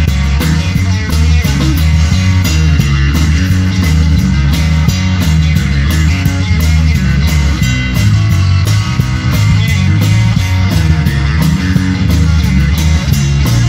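Live rock band playing: electric guitars over a drum kit keeping a steady beat, with a heavy low end.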